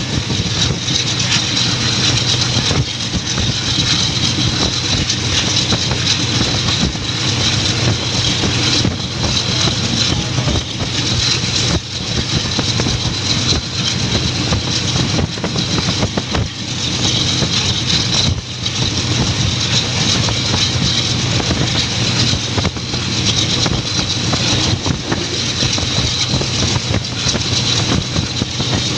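Passenger train running at speed, heard from an open coach window: a steady rumble and rush of wheels on the track, with a few short knocks scattered through it.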